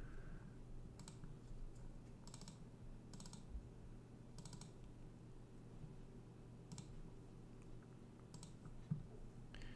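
Faint, scattered clicks of a computer mouse, about nine in all, some in quick pairs like double-clicks, over a low steady hum.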